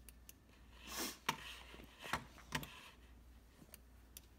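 A computer mouse clicking several times in short, scattered clicks, with a few louder taps and rustles between about one and three seconds in, over a faint low hum.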